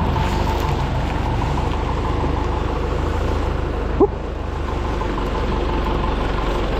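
Tractor diesel engine running steadily at low revs, with one short, sharp rising squeak about four seconds in.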